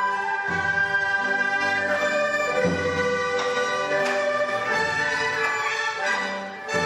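Chinese orchestra playing: plucked pipa and ruan, dizi flutes and bowed cellos and double bass sound together in held notes, with low strokes every couple of seconds.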